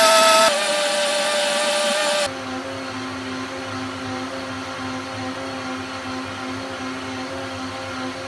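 Vitamix blender motor running at high speed on its hot soup cycle, blending and heating the soup: a steady whine that steps down abruptly about half a second in and again about two seconds in, leaving a quieter, lower hum.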